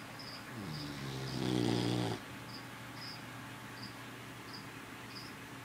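Boston terrier–beagle mix puppy snoring: one long, buzzy snore starting about half a second in, growing louder for about a second and a half, then cutting off sharply. A faint high chirp repeats about twice a second behind it.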